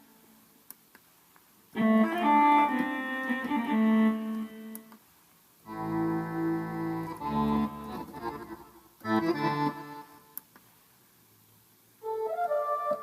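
Korg Pa50 arranger keyboard playing short demonstration phrases, one voice after another: four brief passages with pauses between them.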